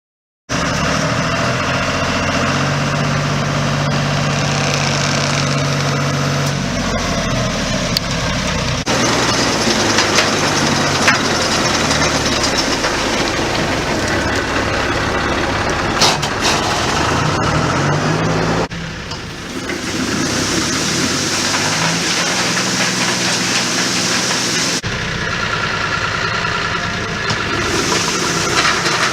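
Engine running steadily, its sound shifting abruptly about 9, 19 and 25 seconds in.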